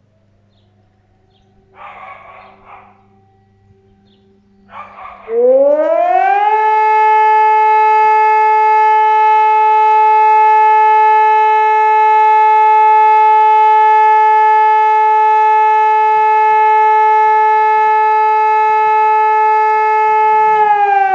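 SiRcom SIBT 500 civil-defence siren sounding for a test, after two brief noises. Its tone rises about five seconds in, holds one steady loud pitch, and begins to fall just before the end.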